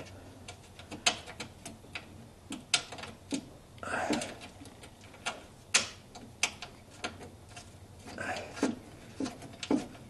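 Ratchet wrench clicking in short, irregular strokes while running down a 9/16 nut, with small metallic knocks and scuffs of the tool against the bracket.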